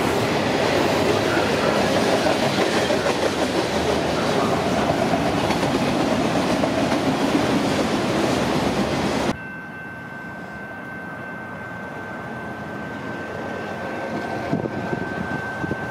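Norfolk Southern freight train rolling past, a loud steady rush of wheels on rail with some clickety-clack. About nine seconds in it cuts off suddenly, leaving a steady high-pitched tone over a low rumble that slowly grows louder.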